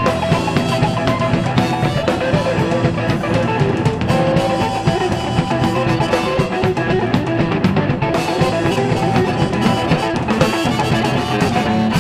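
Blues trio playing live on guitar, bass and drum kit, an instrumental stretch with no singing; the band stops sharply at the very end.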